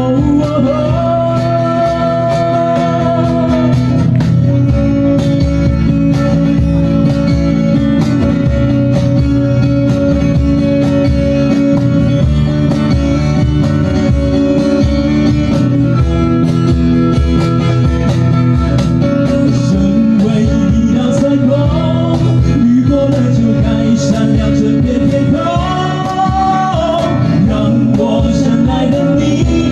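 Live acoustic band playing a pop ballad through a PA: two acoustic guitars strummed, a cajón keeping a steady beat, and a man singing the melody.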